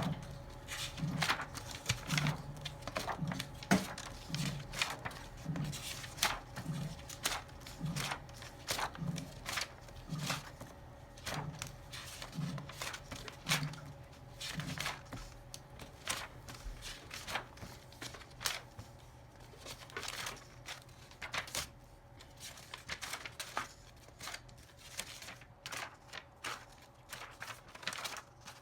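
Irregular small clicks and rustling handling noises, with soft low thuds about once a second through the first half, over a steady electrical hum.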